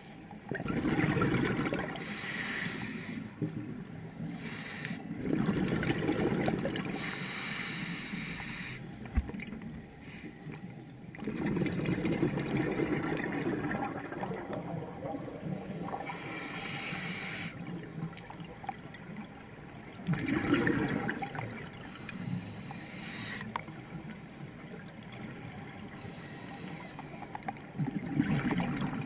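Scuba diver breathing through a regulator underwater: exhaled bubbles gurgle out in loud bursts roughly every six to eight seconds, with the hiss of each inhalation between them.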